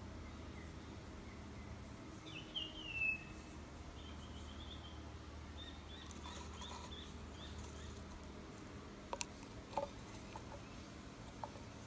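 A bird calling: a few wavering chirps about two to three seconds in, then a run of short, quick chirps. Near the end come a few light knocks as a clear plastic cup is set down on a wooden table.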